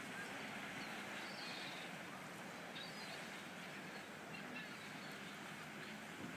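Outdoor harbour ambience: a steady background noise with a low hum under it and a few faint, short bird calls.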